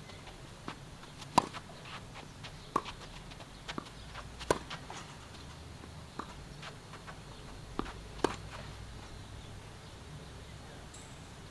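Tennis rally: sharp pops of racket strings striking the ball, the loudest about one and a half, four and a half and eight seconds in, with fainter hits, ball bounces and shoe scuffs between them, ending after about eight seconds.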